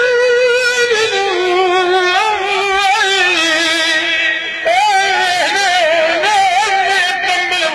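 A man singing Tunisian salhi through a microphone: one unaccompanied melodic line of long, wavering, ornamented notes, with a brief break for breath about four and a half seconds in before a higher phrase begins.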